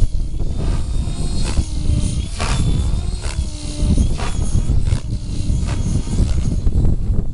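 Electric Gaui X7 RC helicopter flying pitch pumps: the rotor blades make a loud swoosh about once a second as the collective is pumped, and the motor and rotor tone dips and recovers under the load. Heavy wind noise on the microphone runs underneath.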